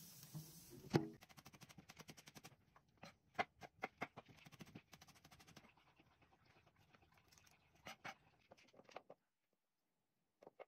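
Chef's knife chopping shallot on a plastic cutting board: a quick, even run of taps, then slower, irregular chops that stop about nine seconds in. A single knock about a second in is the loudest sound.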